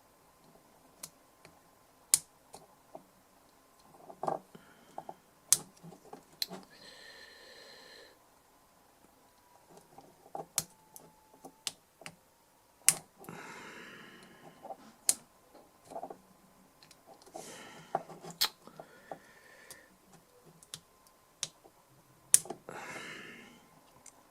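Sharp clicks and taps from a DI box and the small tools working on it, with a few short bouts of scraping or rustling.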